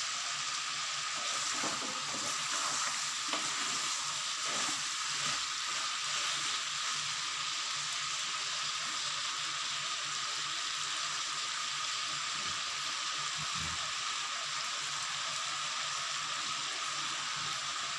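Chicken and chopped tomatoes sizzling steadily in a hot pan as the tomatoes sauté, with a few faint knocks in the first few seconds.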